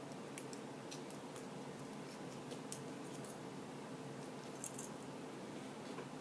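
Faint scattered clicks and light taps of small tools being handled on a work table, over a steady faint hum.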